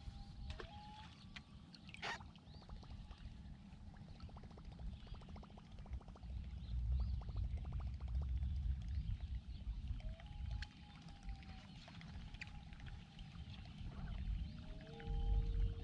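Open-water ambience from a bass boat on a calm lake: water lapping and gurgling against the hull over a low rumble that swells midway, with a run of fast faint ticks and a few faint drawn-out bird calls. Music comes in near the end.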